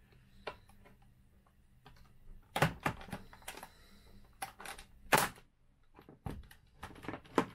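Plastic clicks and snaps from a Citroën C4 instrument cluster's housing and latches being worked apart with plastic pry tools: an irregular string of sharp clicks, the loudest about two and a half and five seconds in.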